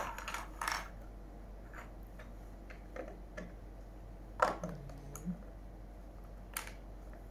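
Plastic Lego bricks clicking and tapping against each other and the wooden tabletop as they are pressed onto a small tower: a few separate light clicks, with one louder knock about four and a half seconds in.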